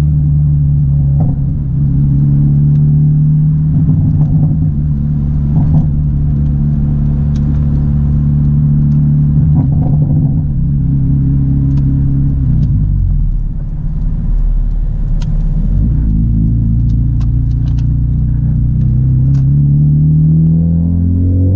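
Honda Civic EP3 Type R's 2.0-litre K20 four-cylinder engine pulling at fairly steady revs. The revs drop about two-thirds of the way through, then climb again near the end as it accelerates.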